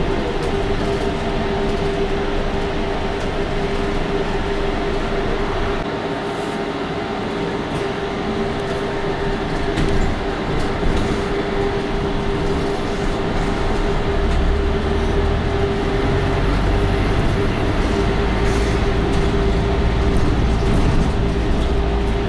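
Inside a moving London double-decker bus: a steady whine from the drivetrain over road and cabin noise, joined from about fourteen seconds in by a deeper engine rumble.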